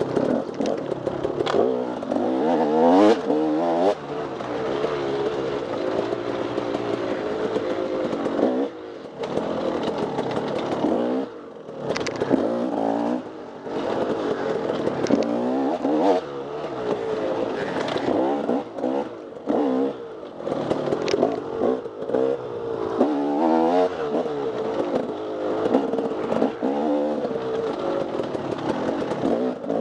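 Off-road dirt bike engine ridden hard, revving up and down over and over as the throttle is opened and chopped, with a few brief drops where the throttle shuts off. Rattles and clatter of the bike over rough ground mix in.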